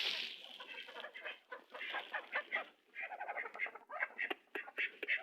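Domestic fowl calling in many quick, short clucking notes, several birds at once.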